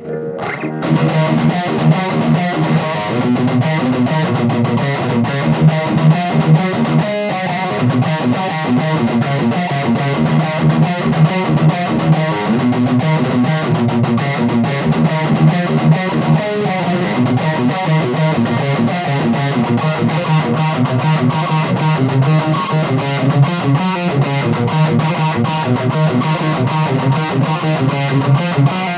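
Electric guitar riffs played with high-gain distortion through a Mesa Badlander 25 tube amp head into a closed-back Mesa speaker cabinet, with no effects. The guitar is a 1995 Fender Stratocaster with a Seymour Duncan Distortion bridge pickup, and the sound is picked up mainly by a close mic on the speaker. The playing starts right at the beginning and continues without a break.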